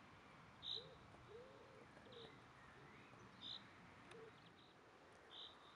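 Near silence with faint outdoor animal calls: a few short high chirps a couple of seconds apart and some soft, low, arching calls.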